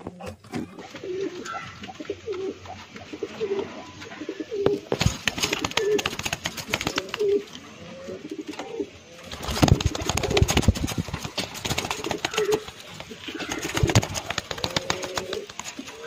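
Domestic pigeons cooing: short, low coos repeated every half second or so. From about five seconds in, wing flaps and scratchy clattering rustle over the coos, busiest around ten seconds.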